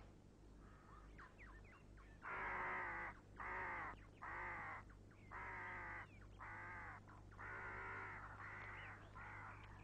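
A bird calling in a series of about eight harsh caws, each under a second long, starting about two seconds in, with a few faint thin chirps before them.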